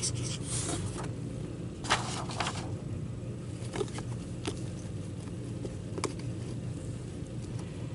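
Felt-tip marker scratching on paper as a number is written, in two short strokes in the first few seconds, then a few light clicks and taps, over a steady low hum.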